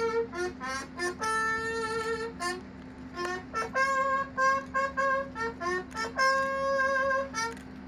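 Brass bugle call for the flag salute: one horn playing short clipped notes and two long held tones, with sharp taps between the notes.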